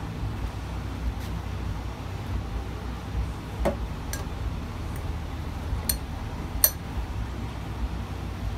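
Four short clinks over about three seconds, the last the loudest: a clear filling tube knocking against its metal pan as it is handled. A steady low hum runs underneath.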